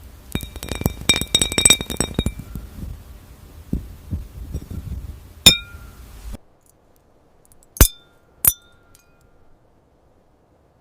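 Glassy clinks and taps with short ringing pings: a quick flurry over the first two seconds, scattered lighter taps, and one loud clink about five and a half seconds in. After a sudden drop in level come two sharp, ringing clinks close together near eight seconds. The sounds are AI-generated glass-food ASMR.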